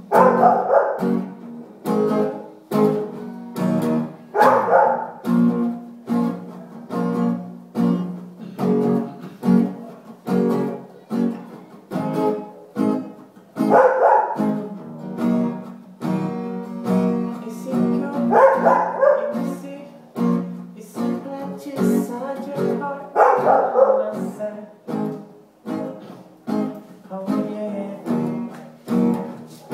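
Music led by a plucked guitar over a steady beat of about two strokes a second, with a brighter burst sounding every four to five seconds.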